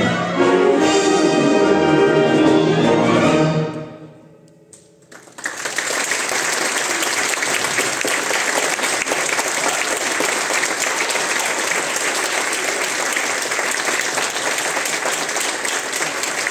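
A symphonic wind band plays the final chord of a piece, which cuts off and rings away in the hall. After about a second of lull, audience applause breaks out suddenly and continues steadily.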